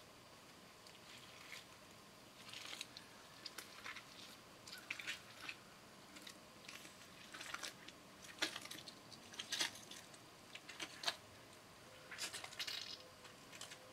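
A person moving close by: an irregular string of short rustles, crunches and scrapes, like steps and brushing against leaves and brush, starting about two seconds in.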